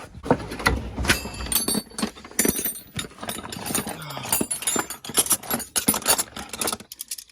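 Metal tools and car parts clanking and rattling in quick irregular succession, with short ringing metallic clinks: hand work on a car during a repair.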